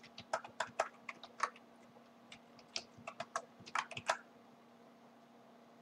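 Typing on a computer keyboard: a quick, irregular run of key clicks that stops about four seconds in.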